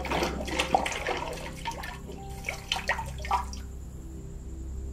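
Liquid being stirred and ladled in a large jar, sloshing and splashing for about three and a half seconds, then a few drips falling back in.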